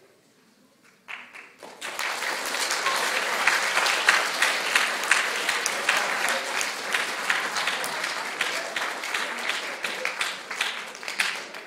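Audience applauding, starting about a second in and quickly building to a full, steady clapping that eases slightly near the end.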